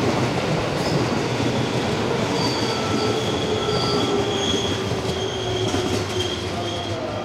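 JR East 251-series electric train moving slowly through a station, a steady rumble with thin, high squealing tones that come and go.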